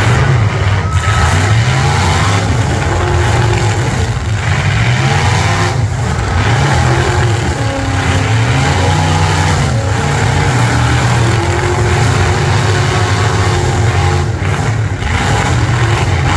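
Engines of several V8 demolition derby cars revving hard, their pitch climbing and dropping over and over.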